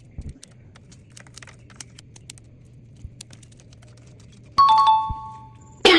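Faint scattered clicks, then about four and a half seconds in a single ringing ding of two tones that fades over about a second. Just before the end, a loud harsh sound cuts in.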